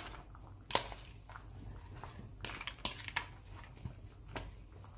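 Pot of mung bean and coconut milk stew boiling, with scattered pops and light crackles as a bundle of dry glass noodles (sotanghon) is dropped in; one sharper click about a second in.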